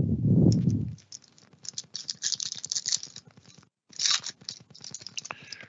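Shiny wrapper of a sports-card pack being torn open and crinkled by hand: a dense crackly rustle that stops briefly past the middle and starts again. A low muffled rumble comes first, in the first second.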